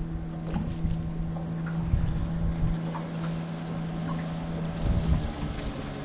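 Wind buffeting the microphone over the steady hum of a boat engine, which drops slightly in pitch about five seconds in, with a few faint small clicks.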